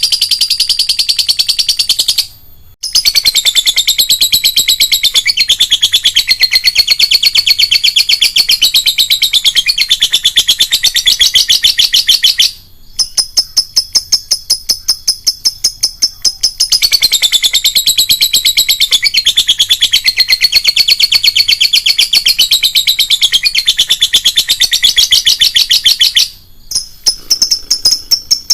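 Lovebird giving its long, rapid, high-pitched chattering trill (the 'ngekek panjang' call), broken by brief pauses a couple of seconds in, about halfway, and near the end.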